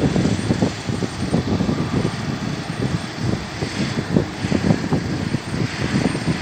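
Distant GE Dash 9 diesel locomotive approaching, its engine a low steady drone, with wind buffeting the microphone in uneven low gusts.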